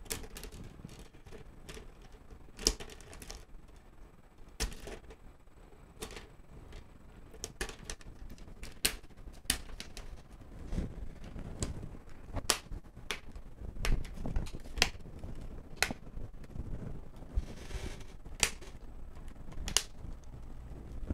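Plastic snap clips of the Dell G5 5590's screen bezel clicking into place one after another as the bezel is pressed down around the display: a string of sharp, irregularly spaced clicks over soft handling of the lid.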